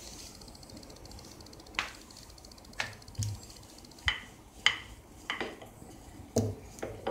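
Wooden rolling pin knocking and clattering on a stone worktop while maida dough is rolled out thin, a run of about eight sharp, irregular knocks.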